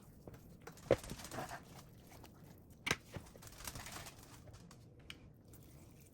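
Hands pulling apart a cooked rotisserie chicken: faint soft tearing and rustling of meat and skin, with two light taps about a second in and again about three seconds in.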